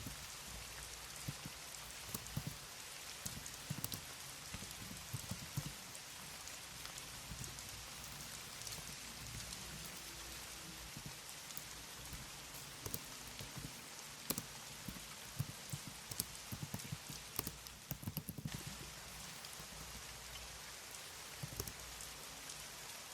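Computer keyboard typing: soft, irregular key clicks, some in quick runs, over a steady background hiss.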